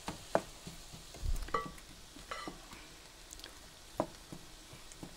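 Diced onions and bell peppers sautéing in a frying pan with a light sizzle, while a utensil stirs them and scrapes and taps against the pan every second or so.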